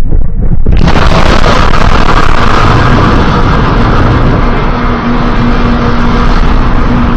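Designed giant-monster sound effect: a low rumble that swells suddenly about a second in into a loud, dense, sustained roar-like noise, with a steady low hum joining it about five seconds in.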